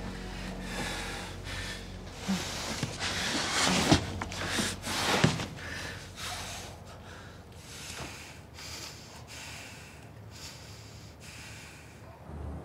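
A person breathing heavily: quick, noisy breaths about one a second, loudest in the first half and softer toward the end.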